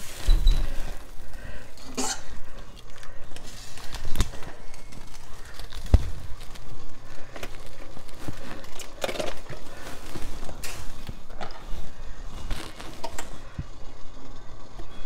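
Kitchen handling noises: a large head of cabbage being turned in a stockpot of simmering water and its softened leaves pulled off. Scattered knocks and clatters sound over a low steady hum.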